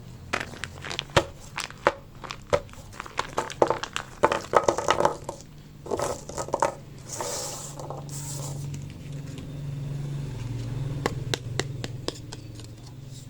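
Plastic toy packaging crinkling and being torn open by hand, with many sharp clicks and taps. Two longer tearing rasps come about seven to eight seconds in, and a steady low hum sits underneath in the second half.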